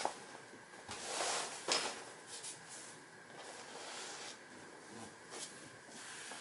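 Soft rustling with a few light knocks as a person shifts his body and legs on a vinyl exercise mat, the loudest swell of rustling and a sharp knock about a second and a half in.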